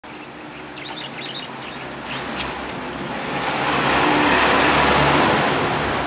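A few short, high budgerigar chirps in the first second and a half and a single click a little later, then the noise of a passing car swelling up to dominate the second half and starting to fade near the end.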